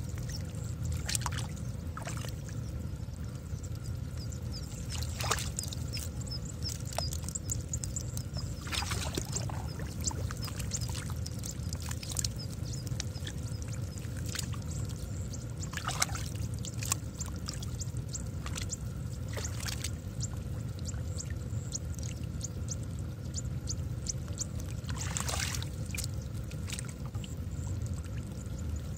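Muddy water sloshing and splashing as hands grope through a shallow, silty puddle, with scattered short splashes, a few louder, over a steady low rumble.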